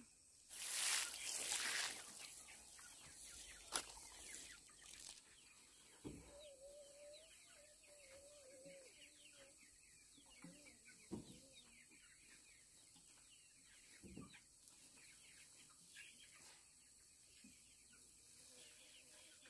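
Chickens clucking and calling. A brief loud rustle comes about a second in.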